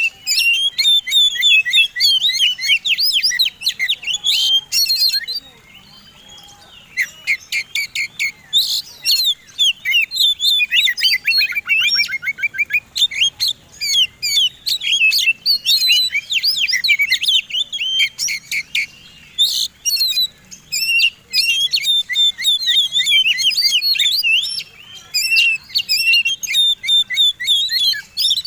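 Oriental magpie-robin (kacer) in full fighting song: a loud, fast, varied stream of whistles and chirps. It pauses briefly about five seconds in, and a rapid run of short notes comes around eleven seconds in.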